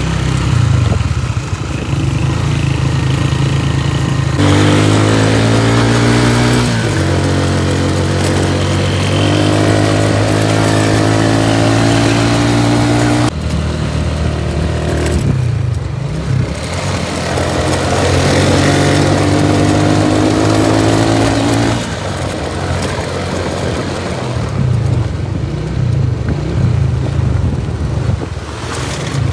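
Motorcycle engine running during a ride. It pulls up in pitch three times as the bike accelerates, dropping back in between, over a steady rushing noise.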